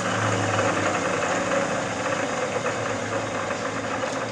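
Standard Modern 11 x 20 engine lathe running under power: a steady mechanical hum and whir from its 1.5 HP single-phase motor and gear drive, easing off slightly in loudness toward the end.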